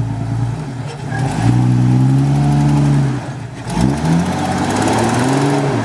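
Jeep Cherokee XJ engine revving under load as the lifted truck crawls over boulders. The revs climb about a second in, dip briefly and pick up again near the middle, then fall away at the end.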